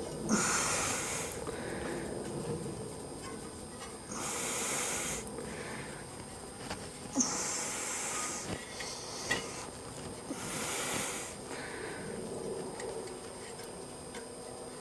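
A person breathing close to the microphone: four hissy breaths about three seconds apart, with a few faint clicks of small parts being handled in between.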